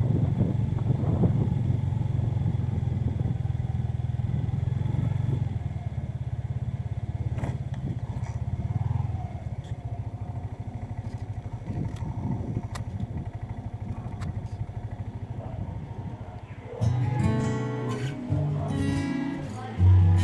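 Motorcycle engine running on the move, with wind on the microphone. Near the end, acoustic guitar music comes in.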